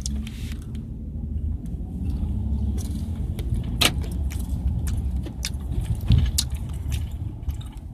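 Car running, heard from inside the cabin: a steady low engine and road rumble that comes up suddenly at the start, with scattered clicks and rattles over it.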